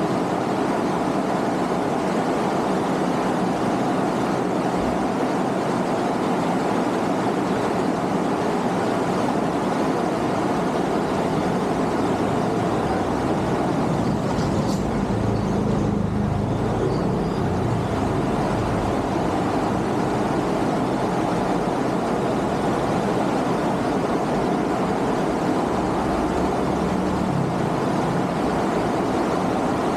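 Steady wind and road rush on an action-camera microphone while riding a motor scooter, with a deeper rumble swelling around the middle of the ride.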